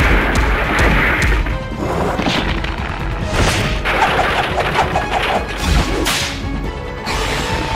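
Cartoon fight sound effects: several sharp whooshes and crashing hits over a steady low rumble.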